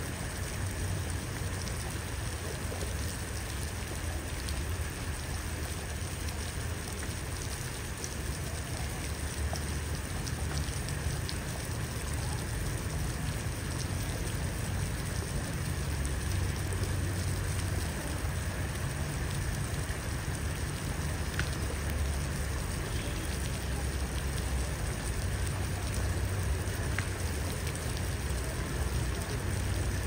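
Steady light patter of water on a puddle and wet ground, with a few faint ticks over a low rumble.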